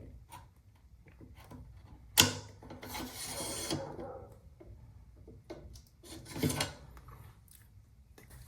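Terminus rifle bolt being worked in the Terminus Zeus action: a sharp metallic click about two seconds in, then a smooth sliding rub of metal on metal lasting over a second, and a second, shorter slide about six seconds in.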